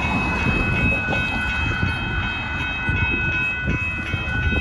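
Railroad crossing warning bell ringing steadily in high repeated tones while the signal lights flash, the crossing just activated before its gates lower, over a low, uneven rumbling noise.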